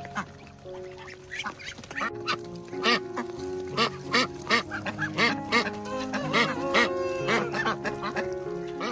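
A flock of ducks quacking over and over at feeding, the calls coming thicker from about two seconds in, over background music with steady held notes.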